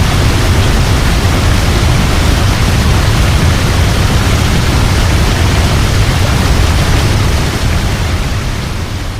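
Waterfall: a steady, heavy rush of falling water with a deep low rumble, beginning to fade out over the last second or two.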